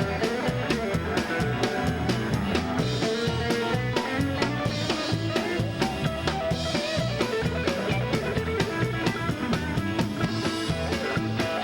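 A band playing an instrumental passage: guitars over a drum kit's steady beat, with no singing.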